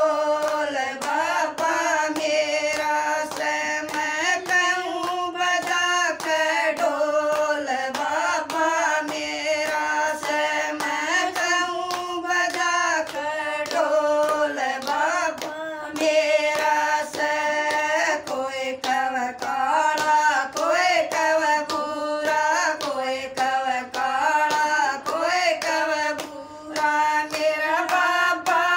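Women singing a Haryanvi devotional bhajan together, keeping time with steady hand claps.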